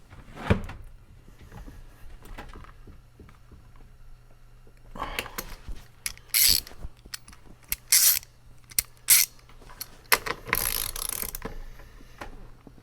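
Socket ratchet wrench on a steering-wheel center nut, clicking in several short sharp bursts with a longer run of clicks near the end. The nut is tight and fighting the wrench.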